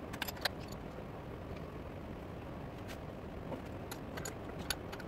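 Light metallic clicks and clinks from hands working the tool post of a metal lathe, a few near the start and a cluster near the end, over a steady low hum.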